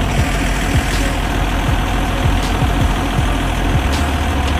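Tractor engine running at a steady idle, an even low chugging with no change in speed.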